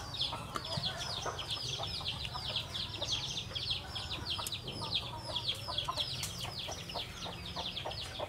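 A flock of chicks peeping without a break, many short high falling peeps several times a second, over a low steady hum. Small ticks and drips come from lime being squeezed by hand into a steel bowl.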